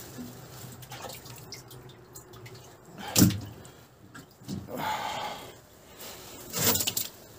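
Landed wels catfish flopping on the wet wooden floor of a boat: a few sudden wet slaps, the loudest about three seconds in and another near the end, with a longer splashy rustle around five seconds.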